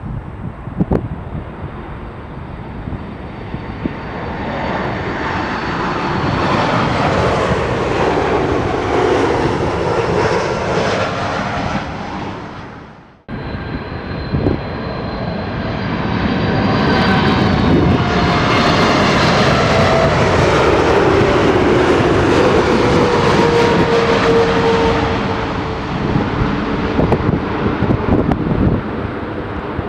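Boeing 747 on takeoff, its four jet engines swelling to full loudness with a whine that falls in pitch as it passes, then fading. After an abrupt cut about 13 seconds in, a second Boeing 747 on its landing approach, its engines rising to a loud steady rush with a whine sliding down in pitch as it goes by.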